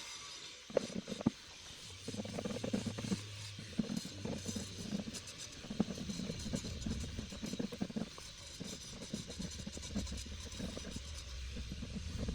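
Handling noises while epoxy glue is worked onto a cracked plastic lawn mower casing: two sharp knocks about a second in, then irregular scraping and rustling over a low rumble.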